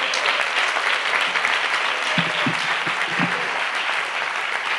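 Audience in a large auditorium applauding, a dense, steady clapping.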